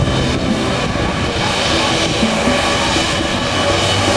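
Jet airliner's engines at takeoff power with the jet blast buffeting the microphone: a loud, steady rush of noise with a heavy low rumble.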